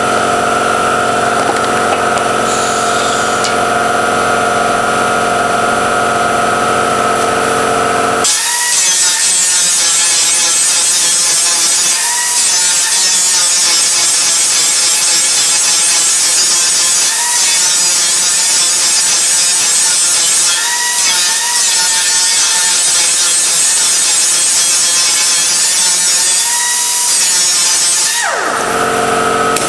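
Angle grinder with an 80-grit disc grinding down a weld bead on metal. It gives a loud harsh hiss from about 8 seconds in for some twenty seconds, and the motor's pitch dips now and then as the disc is pressed in. Before and after the grinding, steady machine tones hum.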